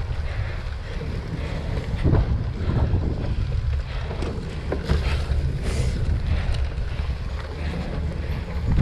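Wind buffeting the microphone of a camera riding on a cyclocross bike, a steady low rumble, with several short knocks and rattles as the bike jolts over rough grass.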